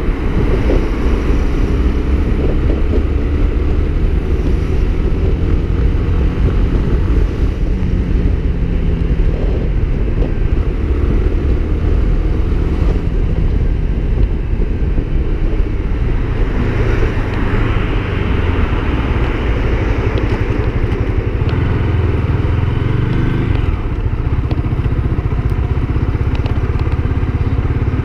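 Honda CB Twister 250's single-cylinder engine running while riding, mixed with wind and road noise. In the last several seconds the engine settles to a lower, steadier note as the bike slows.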